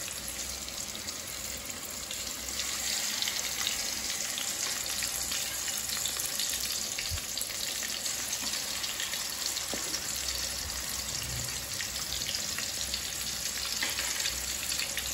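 Rohu fish steaks sizzling and crackling in hot refined oil in a kadai. The sizzle gets a little louder a few seconds in as more pieces go into the oil, then stays steady.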